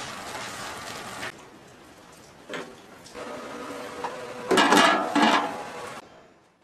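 Kitchen clatter of metal utensils and dishes, loudest about four and a half to five and a half seconds in, after a steady hiss in the first second or so.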